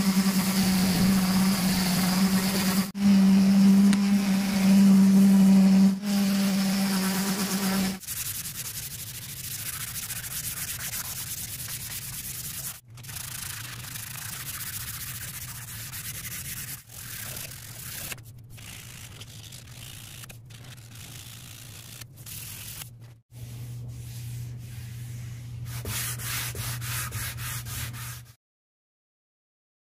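An electric detail sander runs with a steady hum as it sands a wooden tool handle. After about eight seconds it gives way to a strip of sandpaper rubbed back and forth by hand around the handle, in several short passages. The sound cuts off suddenly near the end.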